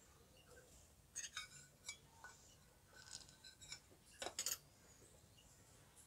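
Near silence: room tone with a few faint, brief high-pitched ticks scattered through.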